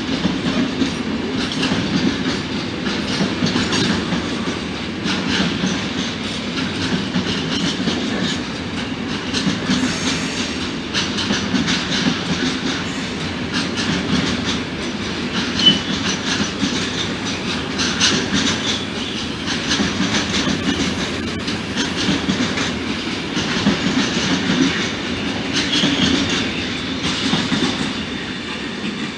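Long intermodal freight train of container wagons and trailer-carrying pocket wagons rolling steadily past, its wheels clicking and clattering over the rail joints.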